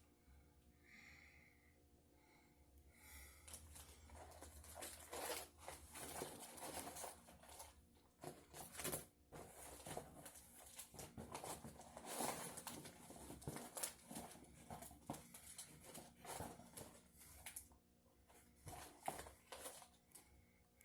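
Faint, irregular rustling and crinkling of paper and packaging being handled, starting a few seconds in and dying down near the end.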